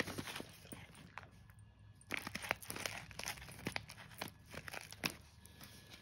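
Plastic pet-food packet crinkling and rustling as it is handled, in irregular small crackles, with a brief lull about a second in.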